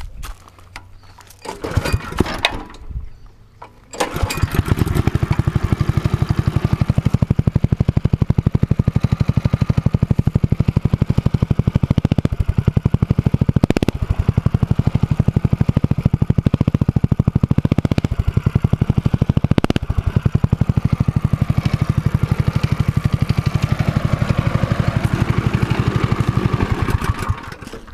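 Honda 6.5 hp single-cylinder four-stroke go-kart engine breathing through a racing exhaust. After some brief rattling it starts about four seconds in, runs steadily with a rapid, even exhaust beat, and is shut off just before the end.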